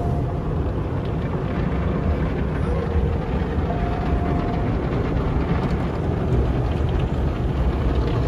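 Automatic car wash heard from inside the car's cabin: water and soap spraying and drumming on the glass and body, over a steady low rumble.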